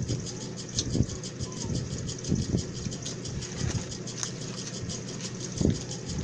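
Mouth sounds of people eating burgers, with a few brief crackles of a paper wrapper being handled, over a steady background hum.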